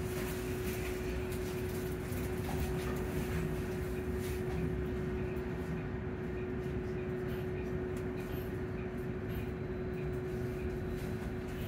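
Volvo hybrid bus drivetrain heard from inside the passenger cabin: a steady low rumble with a constant hum held at one pitch, neither rising nor falling.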